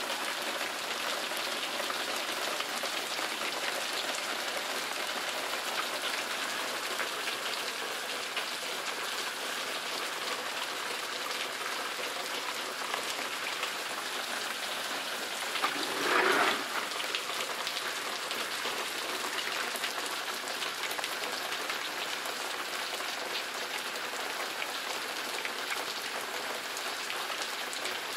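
Heavy rain falling steadily on the ground and surfaces, with one brief louder sound a little past halfway.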